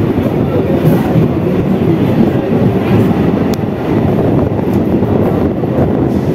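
Three-phase MEMU electric train running at speed, a loud steady rumble of wheels on rail and rushing air, heard from the open coach door.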